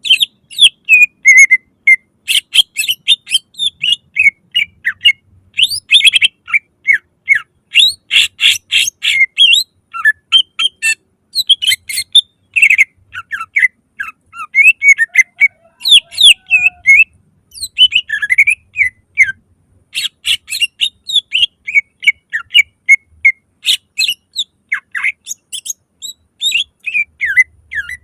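Cucak ijo, a green leafbird, singing loudly: a fast, unbroken run of varied chirps and whistles. The run is broken several times by short bursts of harsh, rapid notes.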